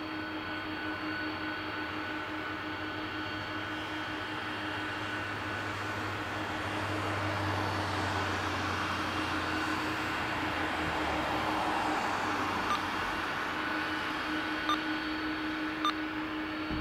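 Boeing 767 jet engines running at taxi power: a steady rush that swells for several seconds in the middle as the airliner passes close, then eases. A steady hum sits underneath, with a few faint ticks near the end.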